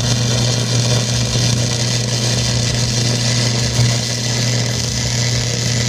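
MIG welder arc running a bead on a cracked exhaust manifold: a steady hissing buzz over a low hum. The welder judges that this pass ran badly, leaving a hole in the weld puddle.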